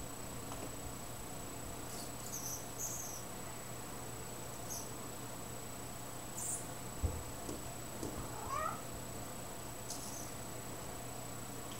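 Domestic cat giving one short rising chirp-like call about eight seconds in, vocalizing at a butterfly it is trying to reach on the wall. A soft thump comes just before it, and a few faint high ticks are scattered around it.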